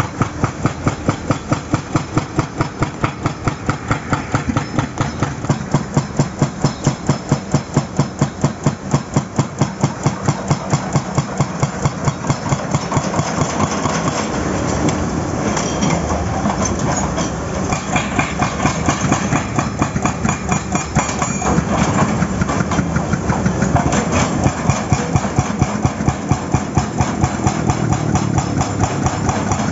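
Excavator-mounted hydraulic breaker hammering asphalt and rock in rapid, even blows, several a second, over the excavator's running diesel engine. The blows fade into the engine sound for a few seconds midway, then return.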